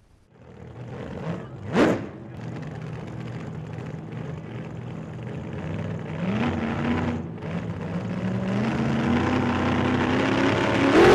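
Car engine accelerating, its pitch climbing in steps as it gets gradually louder, with a brief rising whoosh about two seconds in.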